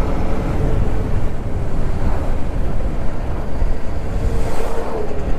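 Wind rushing and buffeting over the microphone on a moving motorcycle at about 50–60 km/h, over the Yamaha motorcycle's engine and road noise.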